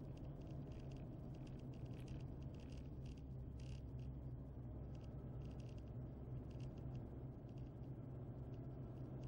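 Faint, steady low drone of a car driving along a road, heard from inside the cabin, with scattered light ticks and rattles.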